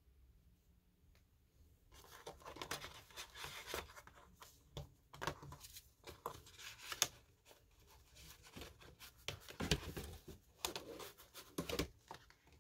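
Hands handling a CD, its case and booklet: plastic clicks, knocks, and scraping and rustling of the packaging, starting about two seconds in.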